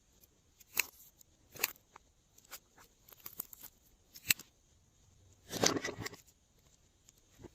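Glossy slime being worked in plastic piping bags: short sticky clicks and plastic crinkles about once a second, with a longer squishing, crackling stretch a bit more than five seconds in.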